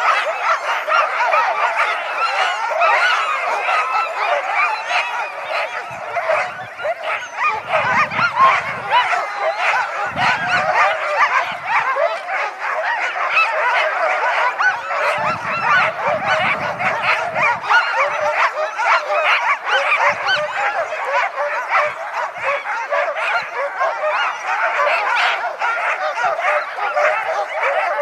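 A large pack of harnessed sled huskies barking, yelping and howling all at once in a loud, unbroken din: the clamour of sled teams eager to run.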